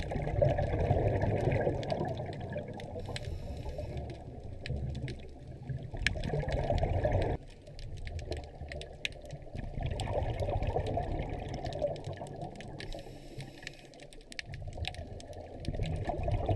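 Underwater sound through a camera's waterproof housing: a scuba diver's exhaled bubbles rushing out in bursts a few seconds apart, with scattered sharp clicks throughout. The sound changes abruptly about seven seconds in.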